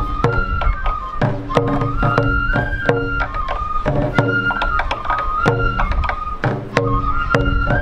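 Sansa odori festival music: a Japanese bamboo flute (shinobue) playing a held, stepping melody over a steady rhythm of taiko drum beats.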